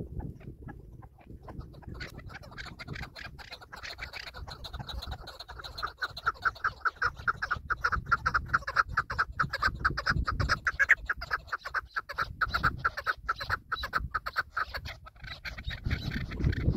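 Chukar partridge calling: a long run of rapid, repeated clucking notes that begins about two seconds in, grows louder through the middle and stops near the end.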